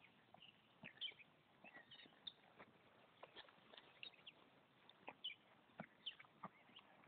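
Faint, irregular hoofbeats of a horse cantering on grass and jumping, with birds chirping.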